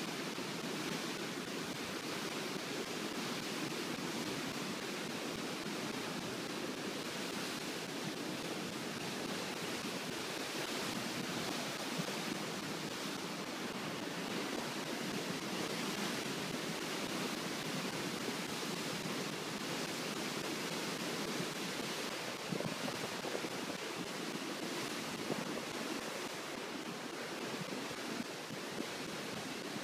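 Floodwater pouring through an open dam gate and churning below it: a steady rush of white water.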